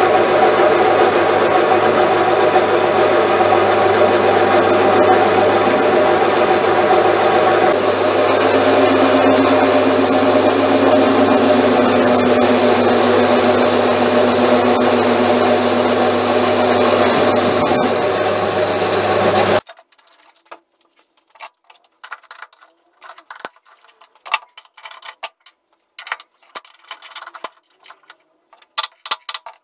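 Metal lathe running with its tool cutting a large spinning steel disc: a steady motor hum and cutting noise, with a high whine held for about ten seconds from about eight seconds in. About two-thirds of the way through it stops suddenly, leaving only scattered light ticks and clicks.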